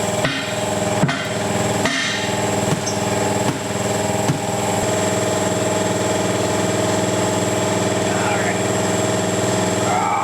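Hammer blows, about six of them roughly a second apart in the first half, struck to free a Chevrolet 3500HD's rear axle shaft, whose flange is stuck on with silicone. A steady mechanical hum runs underneath.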